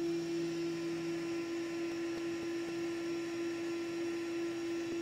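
Steady electrical hum on one unchanging tone, with a fainter lower tone that stops about a second and a half in.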